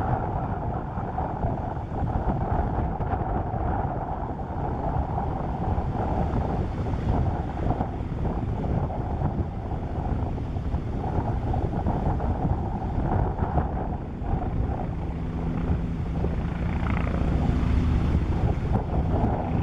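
Strong wind buffeting the microphone over a twin-turbine light helicopter's engine and rotor noise. About three-quarters of the way through, a steady engine hum comes up and the sound grows louder toward the end.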